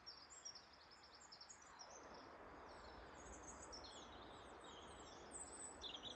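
Near silence with faint small birds chirping and twittering throughout, over a soft steady hiss.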